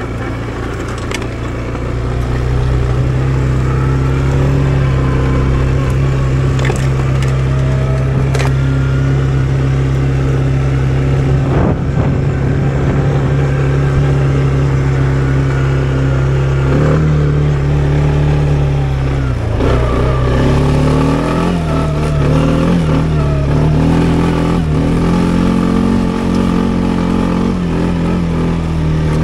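Loncin XWolf 300 ATV engine running at a steady pitch, then from about halfway through its revs rise, dip and waver as the throttle is worked.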